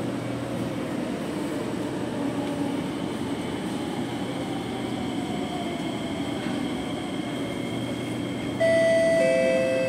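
Steady hum of a C751B train standing at the platform, with a faint falling whine midway. About eight and a half seconds in, the door-closing chime starts: two tones, the second lower, which warn that the doors are about to shut.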